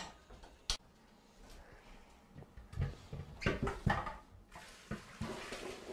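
A few scattered knocks and clinks from pots and utensils being handled at a kitchen stove: one sharp click, a short cluster of clatter about halfway through, and another click near the end, with quiet between.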